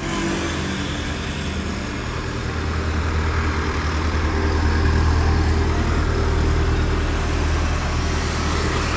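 Motor vehicle running steadily: a low engine drone under a broad rush of road and wind noise, swelling a little toward the middle.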